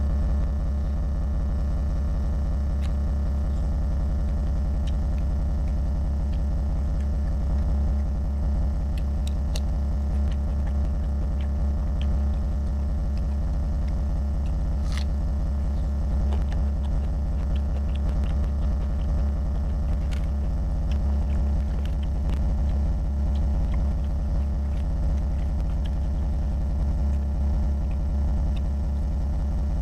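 A steady low hum runs throughout, with faint scattered wet clicks and smacks from chewing and fingers working rice and curry.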